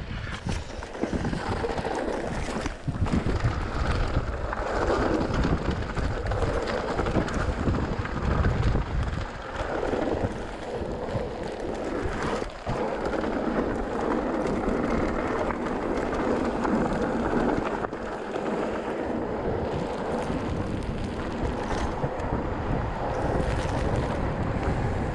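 Wind rushing over the camera microphone on a moving mountain bike, with the rumble of the tyres on the trail and a few short knocks from the bike going over bumps.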